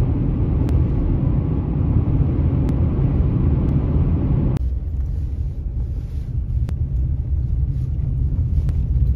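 Pickup truck driving, heard from inside the cab: a steady low rumble of engine and road noise. About four and a half seconds in it turns suddenly duller and slightly quieter.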